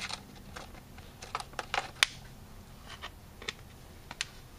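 Small metal carburetor parts being handled on a plastic work tray: scattered light clicks and taps, the sharpest about two seconds in.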